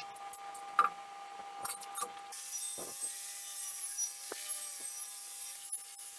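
A few sharp metal clinks as the steel wheel rim is handled, then about two seconds in an angle grinder with a wire cup brush starts scouring the rim's welded joints with a steady, bright hiss.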